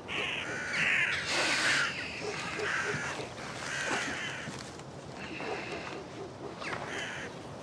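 Crows cawing: harsh calls in quick clusters, loudest in the first two seconds, then more spaced out.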